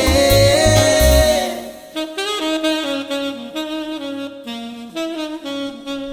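Instrumental outro of a song. The full band with heavy bass drops out about a second and a half in, leaving a single wind instrument playing slow, held melody notes more quietly.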